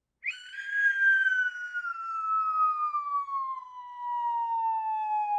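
An outro sound effect: one long whistle-like tone that slides slowly and steadily down in pitch.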